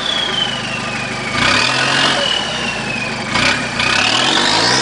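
Off-road 4x4 engine working under load in a slow rock climb, with a high whine that falls in pitch and then rises near the end as the revs climb. Two brief noisy bursts break in, about a second and a half and three and a half seconds in.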